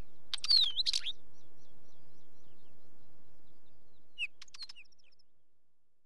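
Wheatear singing: a short phrase of rapid scratchy clicks around a dipping whistle, then a second, fainter phrase about four seconds in as the sound fades out.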